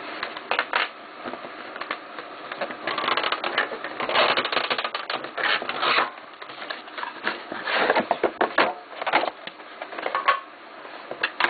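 Plastic wrapper on a 2008-09 Upper Deck The Cup hockey card tin crackling and rustling in quick, irregular bursts as it is peeled off, with the tin being handled and opened.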